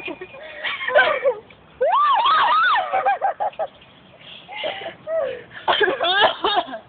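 Young women laughing and shrieking in high-pitched bursts, with rapid ha-ha pulses about three seconds in and again near the end.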